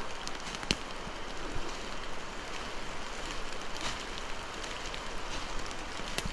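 Rain in woodland: a steady hiss of falling rain with scattered sharp taps of drops landing.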